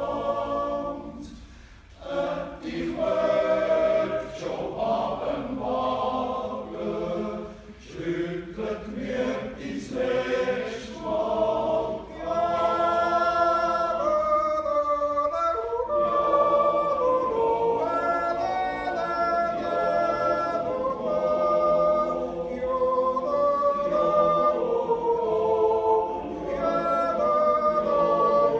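Swiss men's yodel choir singing a yodel song a cappella in close harmony. The phrases are short and broken at first; about twelve seconds in, the voices settle into long held chords.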